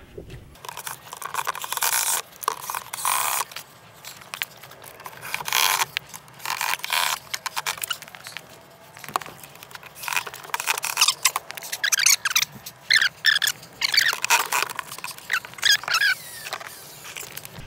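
Cordless drill driving flathead screws into the dog house's interior panels in a series of short bursts, some with high squeals as the screws bite.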